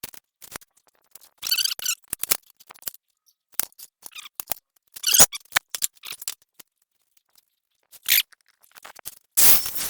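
Irregular clinks, knocks and scrapes of steel angle iron and tools being handled at a workbench, a few with a short metallic ring. Near the end a loud, steady rushing noise starts.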